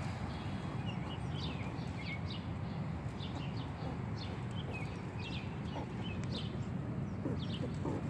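Baby squirrel making short, high-pitched squeaks, about two a second, over a steady low background noise.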